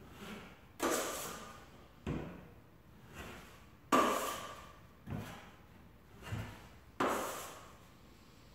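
Drywall taping knife scraping joint compound against the edge of a mud pan. Three sharp scrapes about three seconds apart, each fading within a second, with softer knocks of the knife on the pan between them.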